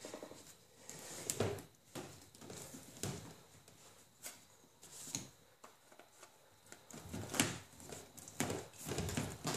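A stiff clear plastic hose being worked by hand onto a plastic tee fitting: irregular rubbing and knocking noises, with the loudest knock about seven seconds in.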